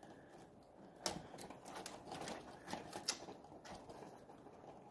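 Faint, irregular small clicks and taps of hands working a tape measure against the bottom rail of a cellular blind.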